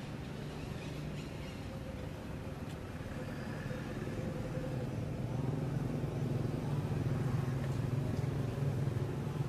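A motor vehicle's engine running with a steady low hum that grows louder about halfway through.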